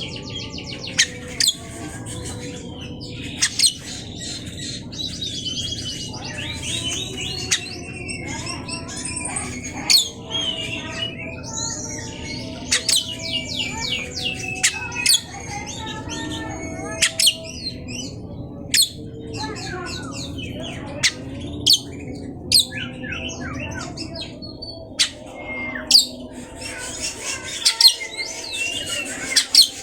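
Oriental magpie-robin (kacer) singing a long, varied song of loud whistles, rapid trills and sharp, sudden call notes, over a faint steady low hum. It is played as a lure song to set off a quiet kacer.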